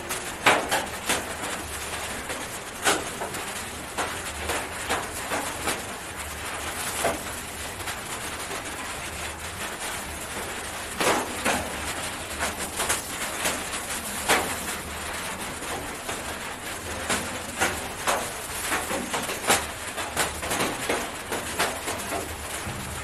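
Loose plastic gloves crinkling and rustling as hands hold and work on a chicken's head, making irregular sharp crackles.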